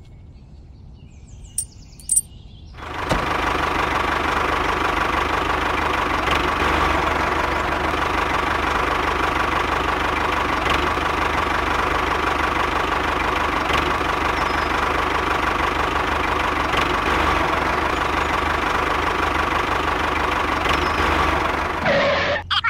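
A couple of light clicks as a wire hitch pin is fitted to a toy trailer. About three seconds in, a steady engine-like running sound from the miniature model tractor as it pulls two trailers.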